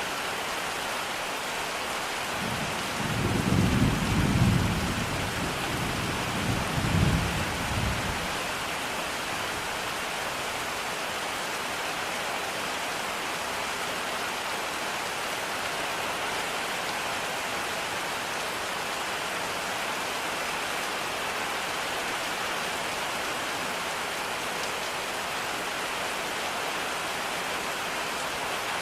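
Steady rain, with a roll of thunder rumbling low from about two and a half seconds in, swelling twice and dying away by about eight seconds.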